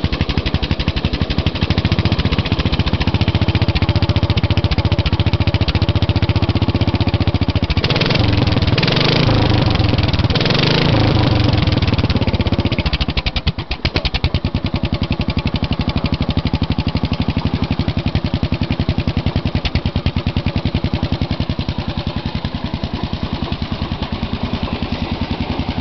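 Garden tractor engine with a stack exhaust running steadily. About eight seconds in it is revved up and down for a few seconds, drops off sharply, then settles back to steady running.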